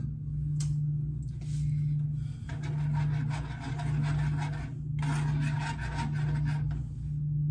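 Rasping, scraping sounds of food preparation at the kitchen counter, in two bouts of about two seconds each, over a steady low hum.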